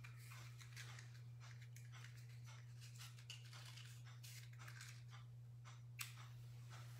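Faint scratchy, crinkling handling noises of a small object held in the hands, with a sharp click about six seconds in, over a steady low hum.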